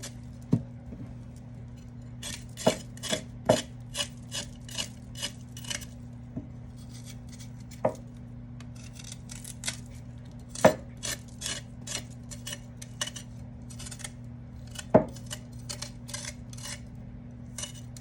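Ginger root having its skin scraped off: groups of quick, short scratchy strokes with pauses between, and now and then a sharper knock of the utensil against the board or bowl. A steady low hum runs underneath.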